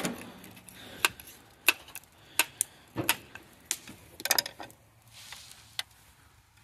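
Scattered sharp metallic clicks and taps, about ten, irregularly spaced with a quick cluster a little past the middle, from a screwdriver and the parts of a starter solenoid being handled and worked on.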